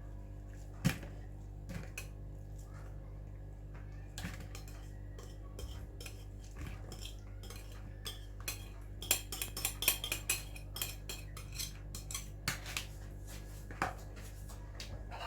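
Kitchen utensils clinking and scraping against a bowl during food preparation: scattered knocks, one sharp one about a second in, then a busy run of clinks in the second half, over a steady low hum.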